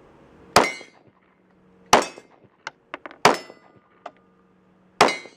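Four 9mm pistol shots from a Glock 17, spaced a second or more apart, each followed by the ringing clang of a steel target being hit.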